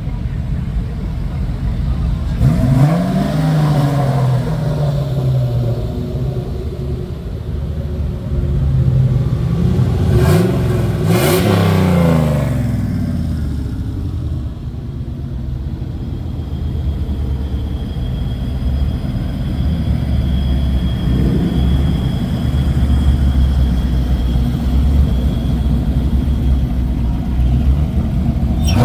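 Fox-body Ford Mustang V8s running in a group, engines revving up and dropping back in pitch about three seconds in, again around ten to twelve seconds, and right at the end. In between, a steady low engine rumble.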